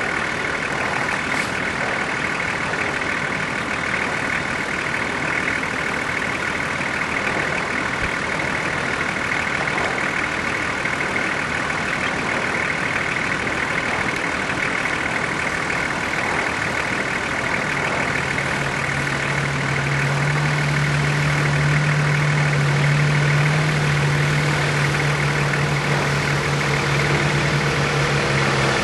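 Vehicle engine idling steadily. About two-thirds of the way through, a deeper steady engine hum joins in and the sound grows a little louder.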